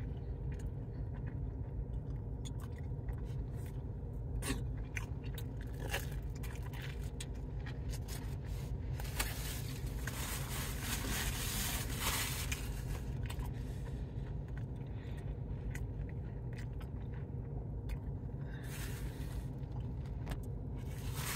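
A person chewing a mouthful of crusty Detroit-style pizza close to the microphone: many small crunching and wet mouth clicks. A steady low hum runs underneath, with a few seconds of louder hissing noise near the middle.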